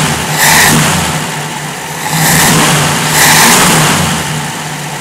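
1965 Jeep CJ5 engine on a retrofitted Ford XF Falcon electronic ignition, idling and revved up in three short blips of the throttle while bone cold.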